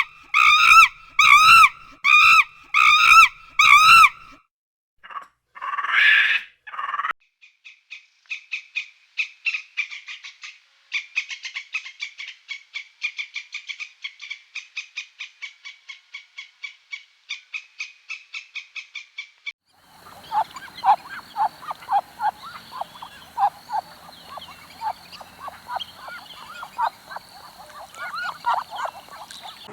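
A sequence of different animal calls: five evenly spaced pitched calls, then a long rapid trill lasting about twelve seconds, then a dense chorus of short calls over a steady high-pitched tone.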